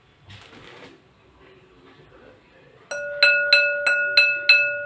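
A borosilicate glass mixing bowl tapped six times, about three taps a second, each tap making it ring with the same clear bell-like pitch that lingers after the last tap. A brief rustle of packing paper comes just before.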